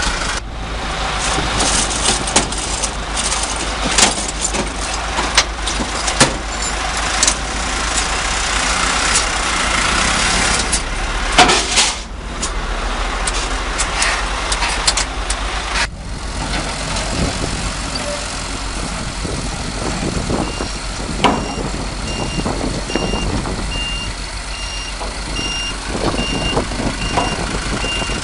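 Dump truck running over a rough dirt track, its engine going under clatter and knocks from the body. In the last third, a truck's reversing alarm beeps at a steady pace, about once a second.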